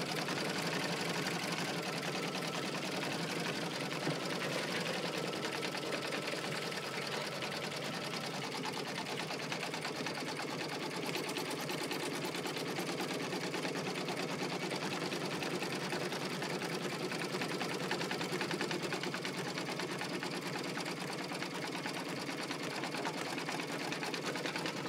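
Baby Lock embroidery machine stitching steadily, a rapid, even run of needle strokes as it sews the final outline of a design through vinyl in the hoop.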